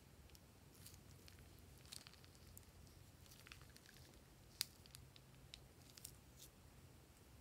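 Faint, sticky clicks and squelches of a thick slime mixture being squeezed out of a plastic piping bag into a glass bowl, with one sharper click about four and a half seconds in, over a low steady hum.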